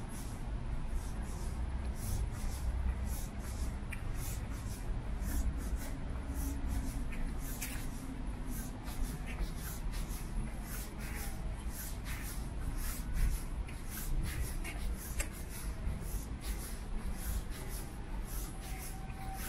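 Footsteps walking at a steady pace, about two steps a second, over a low steady rumble of outdoor city ambience.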